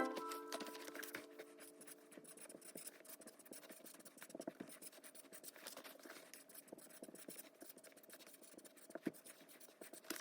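Faint scratching of a pen writing on paper cards, in short irregular strokes, as music fades out at the start.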